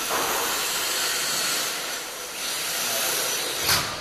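HPI Firestorm 10T Flux brushless electric RC stadium truck being driven, a steady hiss of motor and tyres that swells as it passes close near the end.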